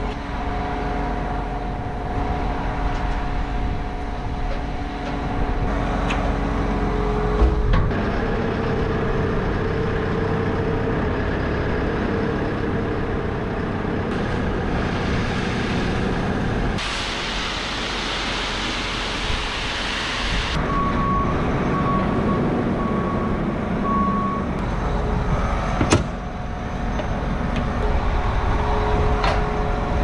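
Diesel farm machinery running steadily: the tractor and the loader lifting a bulk bag of seed over a Claydon drill's hopper. Over the middle there is a rushing hiss lasting about three and a half seconds, then a string of short, high beeps, and a sharp knock near the start and another near the end.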